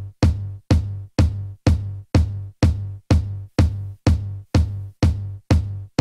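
Electronic background music with a steady kick drum and bass hitting about twice a second.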